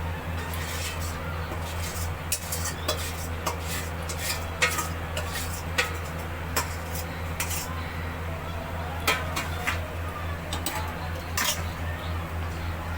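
A spoon stirring chicken curry in a cooking pan, scraping and clinking irregularly against the pan over a steady low hum, as the masala is fried down near the end of cooking.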